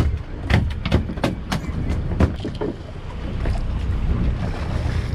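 Steady low rumble of a sportfishing boat under way, with wind and water noise. Over it comes a quick run of sharp clicks and knocks in the first two or three seconds, then a few more scattered ones.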